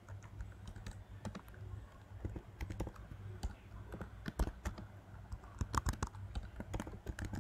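Typing on a computer keyboard: irregular single keystrokes and short runs of keys, over a low steady hum.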